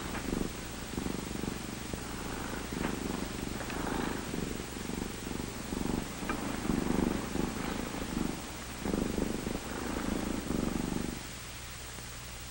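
Domestic cat purring while being stroked, in a run of pulses each lasting about half a second to a second, one for each breath in and out. Under it runs the steady hiss and hum of an old film soundtrack. The purring stops about eleven seconds in.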